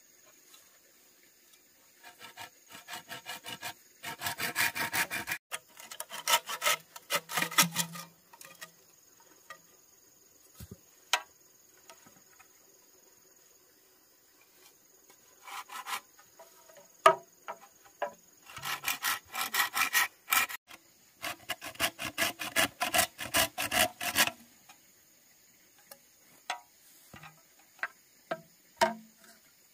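Hand saw cutting through green bamboo poles in two bouts of rapid back-and-forth strokes, with a few short knocks between the bouts.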